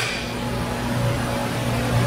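Steady low hum of shop machinery, over a constant rushing background noise.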